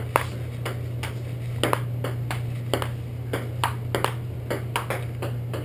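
Table tennis rally: the ball clicks off the paddles and table in quick, uneven succession, over a steady low hum.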